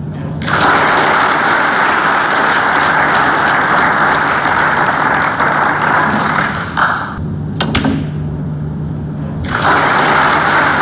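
Arena audience applauding a snooker shot, stopping after about seven seconds. About a second later comes a single sharp click of a cue ball being struck, then applause starts again near the end.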